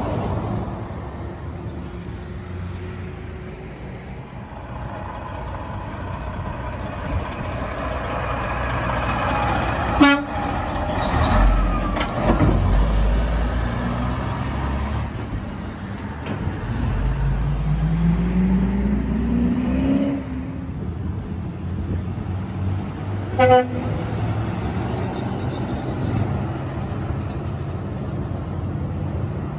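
Diesel semi trucks driving past, one engine rising in pitch as it accelerates away. Brief toots of Hadley truck air horns come about ten seconds in and again about three-quarters of the way through.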